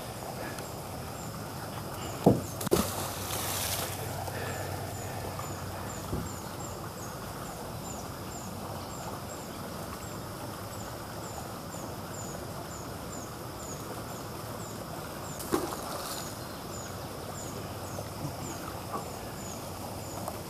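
An insect chirping steadily in a high, regular pulse, about two chirps a second, over a low outdoor background. A few sharp knocks cut in: two close together a couple of seconds in, and one more later.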